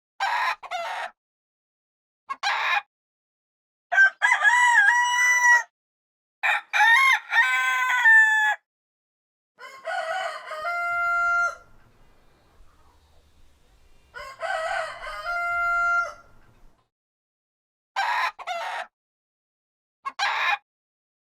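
Rooster crowing over and over: a series of separate calls with silent gaps between them. Two long cock-a-doodle-doos come near the middle, some calls end on a held steady note, and the shortest calls come near the start and the end.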